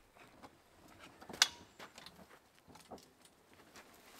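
Scattered light clicks and rattles of a vehicle rooftop tent's latches and hardware being handled as the tent is opened, with one sharp metallic click about a second and a half in.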